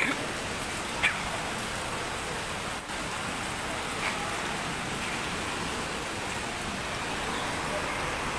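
Steady hiss of heavy typhoon rain and wind, with a couple of brief sharp crackles near the start.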